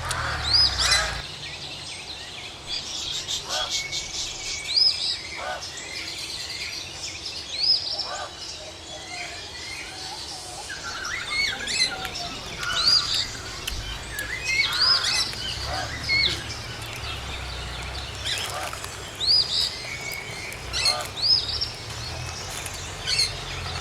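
Birds chirping: a short, high call that rises and drops back, repeated every second or two, with a brief rapid trill near the start.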